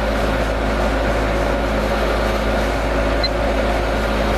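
Vintage ILG box fan running on its high setting: a steady electric motor hum and buzz with rushing air. On high its motor draws a little high current, and the owner finds its buzziness concerning.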